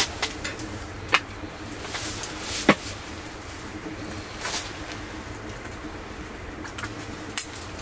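A handful of sharp clicks and taps spaced irregularly over a steady low hum, the loudest click about two and a half seconds in.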